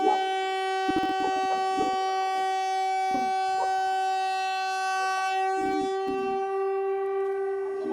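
A steady, buzzy emergency alarm tone held at one unchanging pitch, with scattered clicks and crackles over it, cutting off near the end.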